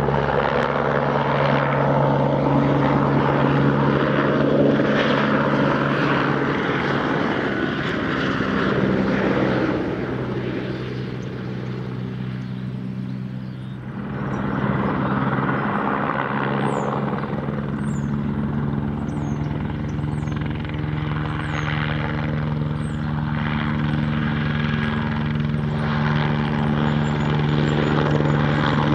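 Eurocopter AS350 helicopter's single turboshaft engine and rotors running as it makes low passes on a crop-spraying run; the sound fades somewhat about ten seconds in and swells again a few seconds later.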